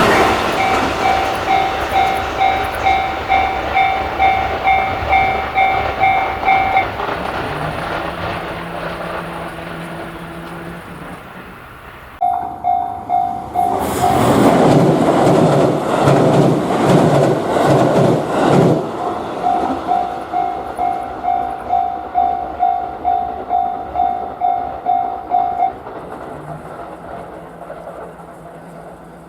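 Japanese level-crossing warning bell ringing its 'kan-kan' about twice a second, falling silent about seven seconds in. It starts again near the middle, and a train passes over the crossing, its wheels clacking rhythmically on the rail joints. The bell stops a few seconds before the end.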